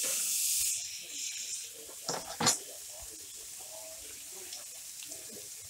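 Chopped raw bacon going into a hot skillet on a gas grill: a loud sizzle as it hits the pan, settling within a second into a steady, quieter sizzle. Two sharp clicks about two seconds in.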